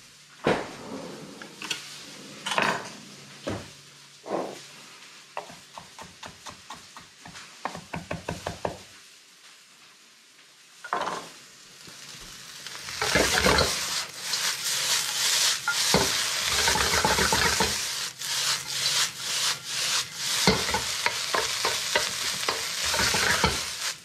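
A knife chops cilantro on a wooden cutting board, with a quick run of chops about eight seconds in. From about thirteen seconds in, fried rice sizzles loudly in a hot carbon steel wok while a wooden spatula stirs and scrapes it.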